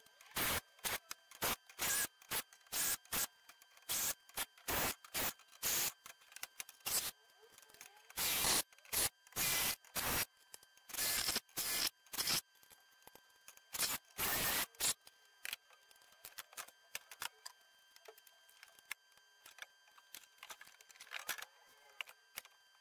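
Cordless impact driver run in short bursts, one after another, driving screws into a steel router-table top plate. About fifteen seconds in the bursts stop, leaving only faint clicks and handling sounds.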